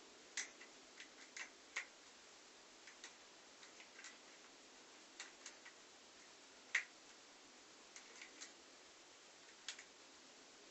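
Small, irregular clicks and taps of a Canon compact camera being handled and fitted onto a tripod head, the loudest a sharp click a little before seven seconds in, over faint room hiss.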